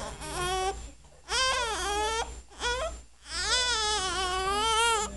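Newborn baby crying in a run of wavering, high-pitched wails, four bouts with short gasps between them, the last one the longest at almost two seconds.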